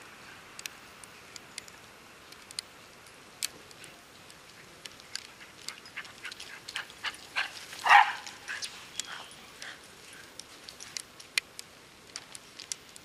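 Steps crunching in snow as dogs run and play: a string of short, sharp crunches that grows busier in the middle, with one short, loud dog bark about eight seconds in.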